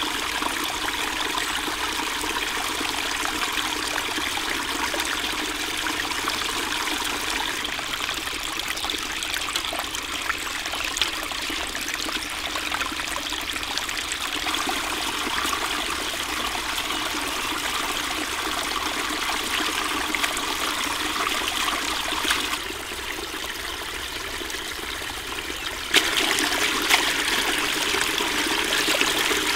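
Small stream of water running and splashing over rocks, with splashing and swishing as fresh greens are rinsed in a water-filled enamel basin. It turns quieter for a few seconds near the end, then comes back louder.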